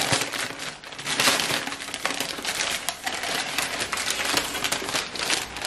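Crumpled white packing paper rustling and crinkling in the hands as it is unwrapped from new champagne glasses.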